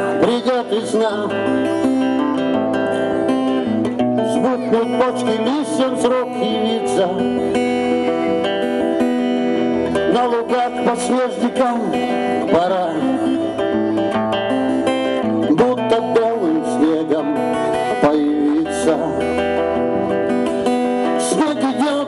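A bard song performed live on acoustic guitar through stage speakers, with a gliding melody line over the guitar.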